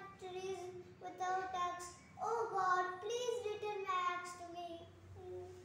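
A young boy's voice in long, drawn-out sung notes that slide in pitch, in several phrases with short breaks, loudest a little after two seconds in.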